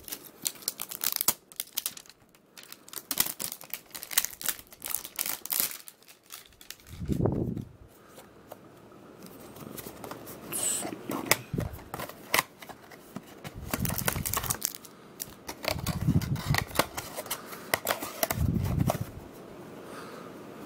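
A cardboard trading-card hanger box being handled and pried open by hand close to the microphone: a run of crinkling, tearing and clicking. There are a few dull thumps about 7, 16 and 18 seconds in.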